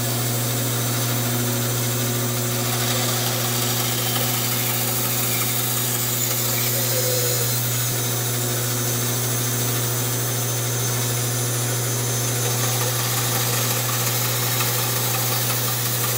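Bandsaw running with a steady hum while a hardwood stretcher is fed into the blade to cut the shoulders of a tenon.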